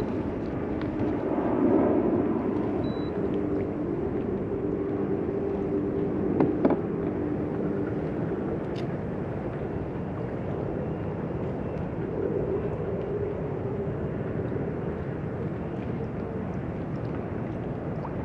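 Steady wind and water noise around a kayak, with a faint low hum coming and going. A single knock about six and a half seconds in.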